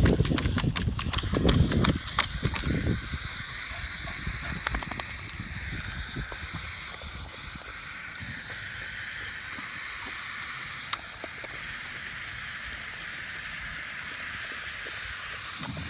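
Water running steadily from a dog drinking fountain into its bowl, an even hiss. The first few seconds also hold a louder low rumble with scattered clicks.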